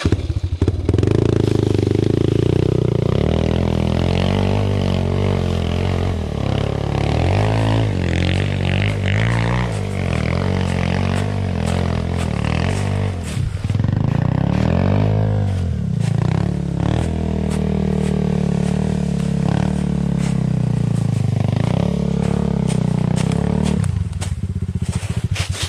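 Enduro dirt bike engine revving hard under load on a climb, its pitch rising and falling again and again as the throttle is worked, with clatter and knocks from the bike. The engine falls away near the end.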